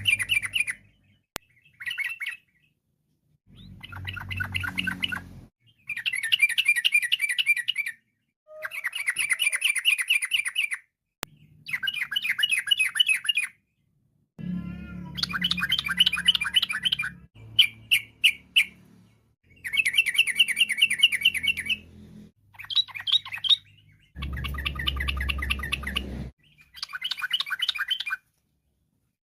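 Yellow-vented bulbul (trucukan) singing its rapid, rolling chattering song in repeated phrases, each a second or two long, with short silent gaps between them. One brief run of four sharp separate notes comes about two-thirds of the way through.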